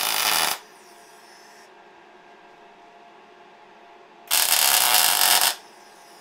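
MIG welder arc running on a steel bump stop pad being welded to an axle, in two short welds. The first stops about half a second in; the second starts a little past four seconds and lasts about a second.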